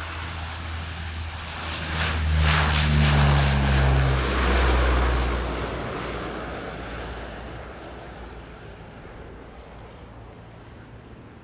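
Lockheed P-3C Orion's four Allison T56 turboprops at take-off power as it climbs out: a low propeller drone with a rushing engine noise, loudest about two to five seconds in, dropping in pitch as the aircraft passes, then fading as it climbs away.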